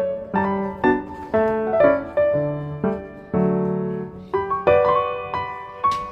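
Background piano music: a simple melody of struck notes, each ringing and fading before the next.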